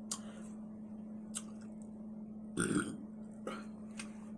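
A woman burps once, a short burp about two and a half seconds in, with a few sharp clicks around it.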